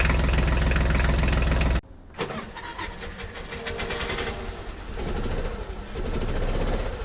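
An engine running loud and steady, cut off abruptly about two seconds in. A quieter stretch of clattering and ticks with a fainter engine follows and grows louder toward the end.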